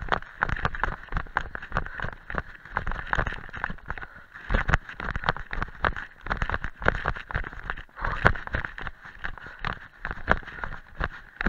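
Running footsteps of a trail runner going downhill on a dirt forest path strewn with leaves and stones: rapid, regular shoe impacts, heard through a chest-harness camera that jolts with each stride.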